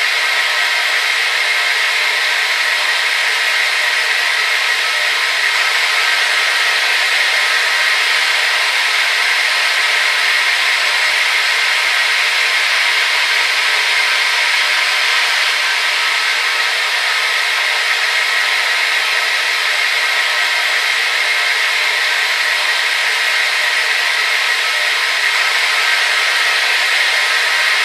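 Hair dryer running steadily: a constant airy rush with a faint motor whine in it, unchanging throughout.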